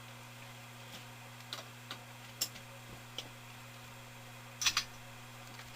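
A 1988 Canarm ceiling fan's motor humming steadily with its switch in the off position, a sign of a wiring or switch fault that the owner suspects is the switch. A few faint clicks sound over the hum, the loudest about three-quarters of the way through.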